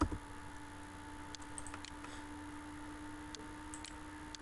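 A handful of faint computer mouse clicks in two short clusters, over a steady low electrical hum, with a soft thump right at the start.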